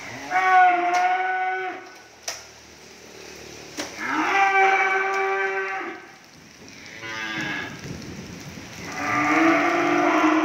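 Cattle mooing: four drawn-out calls of one to two seconds each, the third weaker, the last running on past the end.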